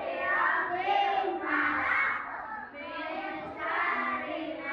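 A group of young children singing together in phrases of about a second, with one child's voice close to a microphone.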